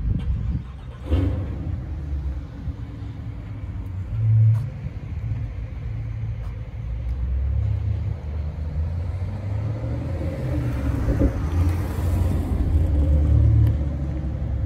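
BMW M Coupe's straight-six engine idling with a steady low rumble. About ten seconds in, a hiss swells and then fades.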